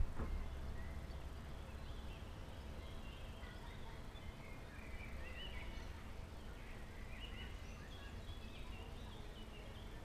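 A crowd of small birds chirping and chattering together in many short, overlapping calls, over a steady low rumble.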